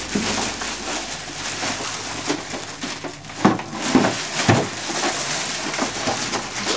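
Plastic bag crinkling and rustling as it is handled, with several sharper crackles.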